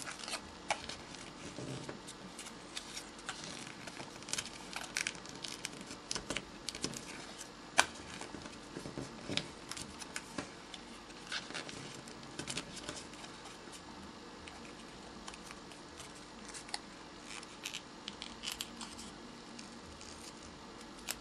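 A small strip of paper being creased back and forth by hand into an accordion fold: faint, irregular paper crinkles with sharp little creasing clicks.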